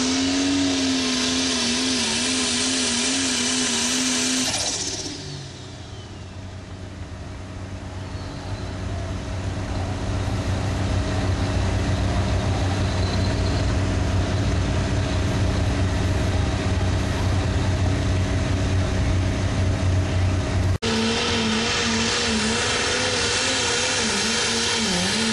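Pulling tractor's diesel engine running flat out under load, its pitch wavering up and down. About five seconds in the sound changes abruptly to a quieter, deep engine rumble that builds, and the wavering high engine note returns near the end.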